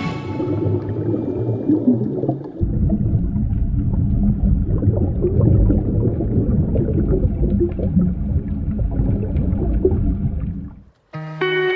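Scuba divers' exhaust bubbles rising underwater, heard as a muffled rumble with bubbling, heavier from about two and a half seconds in and cutting off near the end.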